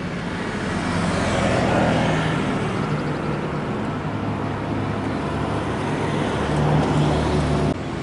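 Steady low rumble of vehicles or machinery with a low hum that strengthens over the last couple of seconds, cutting off suddenly near the end.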